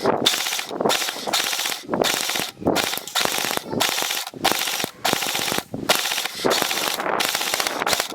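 Airsoft gun firing on full auto in a string of short bursts, each under a second, with brief gaps between them.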